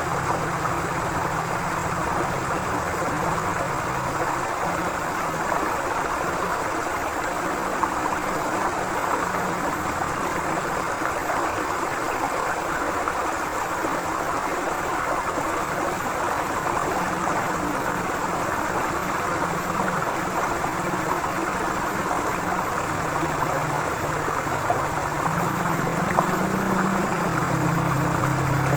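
Forest river flowing: a steady, even rush of water. Under it a low hum comes and goes, growing stronger near the end.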